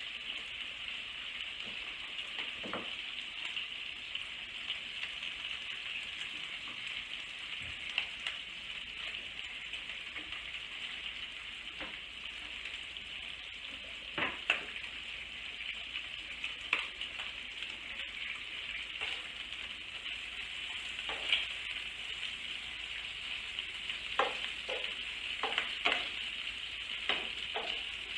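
Bacon sizzling steadily in a frying pan, with scattered light clicks and knocks, several in quick succession near the end as the strips are turned with a fork.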